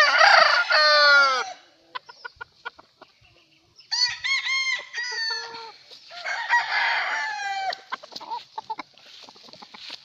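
Gamefowl roosters crowing: three crows in turn, the first the loudest, ending in a falling, drawn-out note, with short clucks between the first and second crows.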